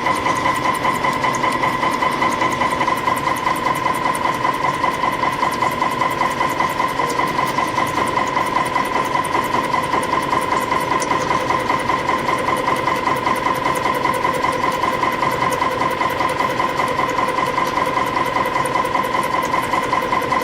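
CNC compression spring coiling machine running at production speed, coiling short compression springs from fine 0.2 mm wire. It makes a steady whine over a fast, even mechanical ticking.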